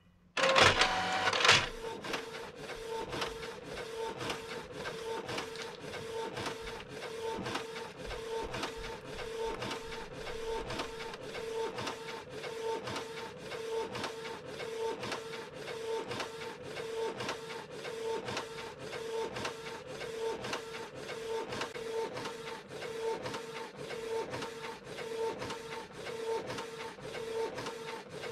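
Canon TS-3130 inkjet printer printing a page. A louder whir in the first second or so, then the print head shuttling back and forth with a pulsing hum in a regular rhythm.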